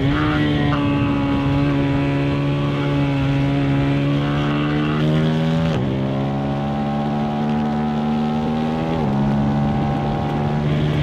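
2025 KTM 390 SMC-R's single-cylinder engine, breathing through a Stage 2 DNA intake filter, pulling under load with the revs climbing slowly. The pitch steps down quickly about halfway through and again about three-quarters through, as the bike shifts up a gear each time.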